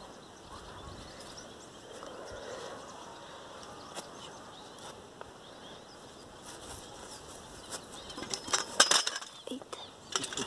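A hooked carp being played on a bent fishing rod: quiet outdoor background with a few faint bird chirps, then about eight and a half seconds in a loud, irregular burst of sharp crackling that lasts about a second.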